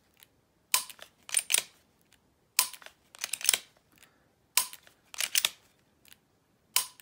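Smith & Wesson M&P striker-fired pistol dry-fired on a snap cap in a quick string: four sharp trigger-break clicks about two seconds apart. The first three are each followed about half a second later by the short scrape of the slide being racked to reset the striker.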